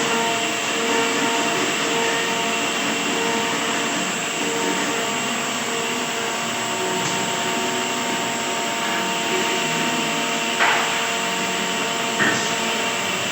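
A woodworking machine running steadily with a constant hum, with two short knocks near the end.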